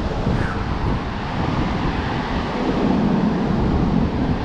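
Steady rushing roar of a large waterfall, mixed with wind buffeting the microphone.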